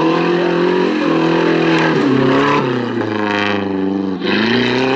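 Off-road race buggy's engine revving hard, its pitch climbing and dropping several times, with a sharp dip and a fresh climb near the end.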